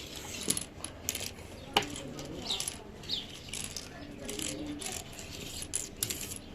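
Loose plastic puzzle-cube pieces clicking and clattering irregularly as they are picked through and sorted by colour by hand.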